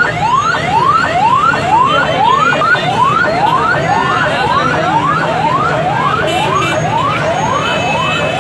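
An electronic siren sounding a rising whoop over and over, about twice a second, over the general noise of a large crowd. For a moment in the middle a second siren overlaps it.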